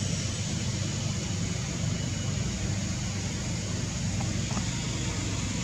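Steady background noise: a low rumble under an even hiss, with no distinct event.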